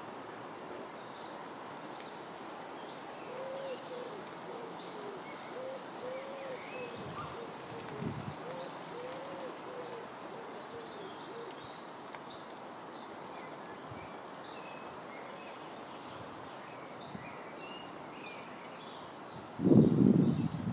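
A pigeon cooing in a run of repeated phrases, with small birds chirping and singing over a steady outdoor hiss. Near the end comes a brief loud low rumble, the loudest sound here.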